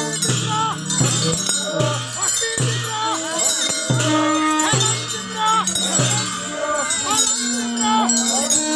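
Men's voices chanting in short held, repeating phrases, with metal bells jingling and ringing steadily throughout.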